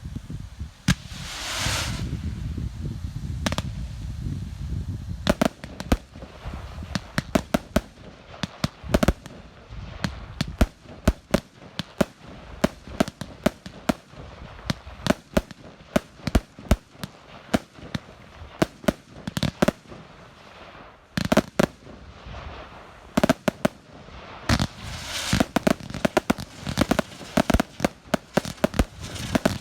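Professional fireworks display: a hissing rush near the start, then a long irregular run of sharp bangs from bursting shells, sometimes several a second, thinning briefly past the middle and thickening again near the end.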